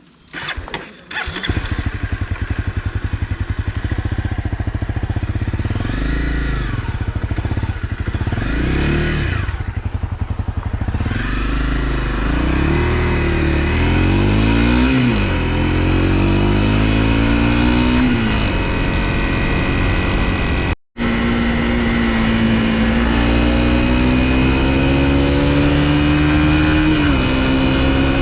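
Honda CRF250L single-cylinder motorcycle engine comes in about a second in, is revved twice, then pulls away with rising pitch through several gear changes. After a brief dropout it runs steadily at riding speed, its pitch slowly climbing, with a drop near the end.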